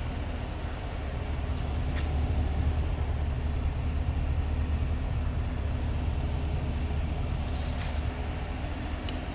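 The truck's 5.3-litre V8 idling with a steady low hum, and a couple of faint clicks about two seconds in and near the end.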